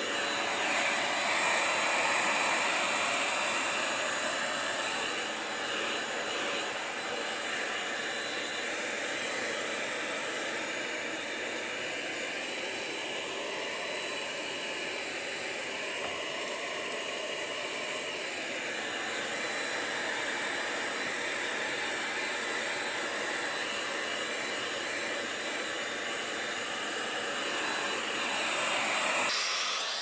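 Corded handheld vacuum cleaner running steadily, a rushing whine whose pitch wavers as the nozzle is worked over the floor, sucking up cat litter and scratching-post debris.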